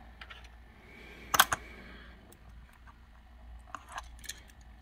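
Light clicks and taps of small diecast toy cars being handled on a plastic display baseplate, with a sharp double click about a second and a half in and a quick run of clicks near the end.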